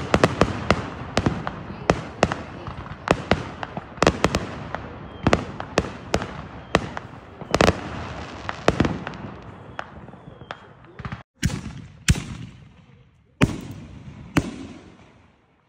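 Aerial consumer fireworks bursting overhead: a rapid run of sharp cracks and pops, several a second, with crackling between them. The bursts thin out in the second half, and the sound stops and restarts abruptly a few times near the end.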